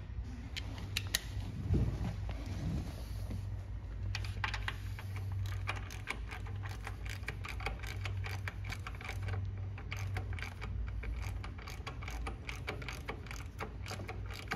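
Socket ratchet clicking in fast, steady runs as a caliper mounting bolt is wound in, with a few knocks of the tool before the clicking starts about four seconds in.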